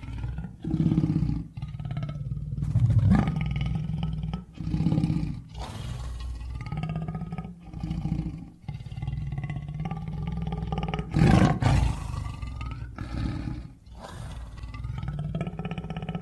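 Lion roaring: a run of deep, repeated roars with short breaks between them, the loudest one about eleven seconds in.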